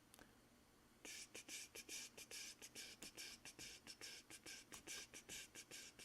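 Faint, rapid typing on a computer keyboard, starting about a second in as a quick run of keystrokes, about five a second.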